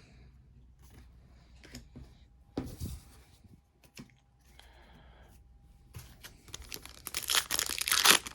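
A foil Pokémon booster pack wrapper being torn open and crinkled, starting about six seconds in and getting loud near the end; before that only a few faint handling clicks.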